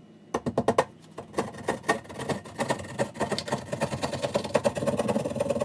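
Hand sheetrock saw cutting through drywall in quick back-and-forth strokes, a moment after the start and on without a break.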